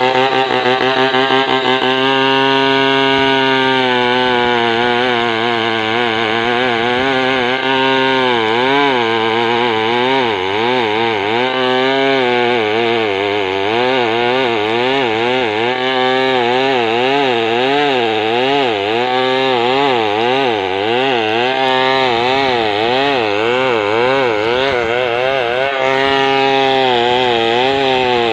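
Stihl two-stroke chainsaw at full throttle, ripping a log lengthwise into beams. The engine runs continuously, its pitch fairly steady at first and near the end and wavering up and down through the middle of the cut.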